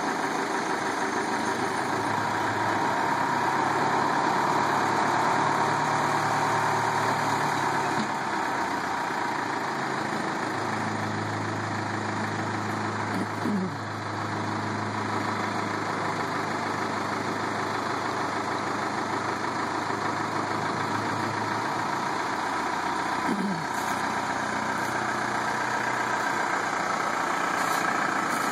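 1971 Mercedes L508D tow truck's diesel engine idling steadily.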